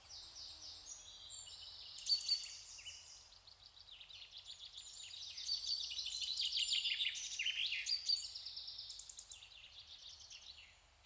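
Faint high-pitched chirping and trilling, many quick repeated notes, a cartoon's nature sound effect. It swells toward the middle and thins out near the end.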